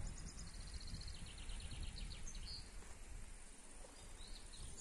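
Songbirds singing: a fast trill of repeated high notes over the first couple of seconds, then a few scattered chirps, over a low, steady rumble.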